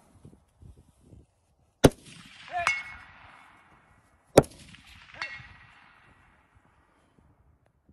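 Two rifle shots about two and a half seconds apart, each followed under a second later by the ring of the bullet striking a distant steel target.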